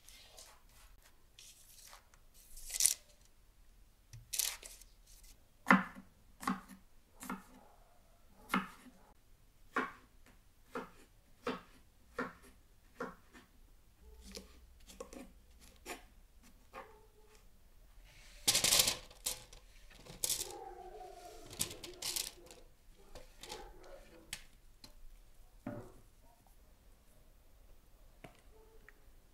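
Food being cut by hand during preparation: a slow, uneven run of sharp, crisp cutting strokes, about one a second. A louder, busier cluster of handling noise comes a little past halfway.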